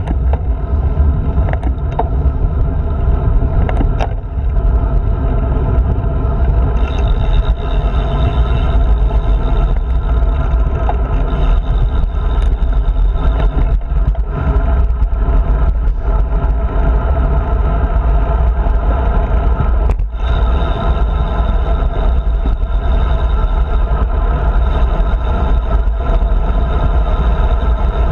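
Steady wind rumble on the microphone of a handlebar-mounted GoPro as a road bike rolls along smooth asphalt, with the tyres' road noise underneath. A couple of light clicks come in the first four seconds.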